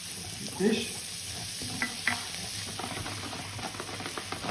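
Chopped onions sizzling in butter and oil in a frying pan, stirred with a wooden spoon that scrapes and taps against the pan with small ticks.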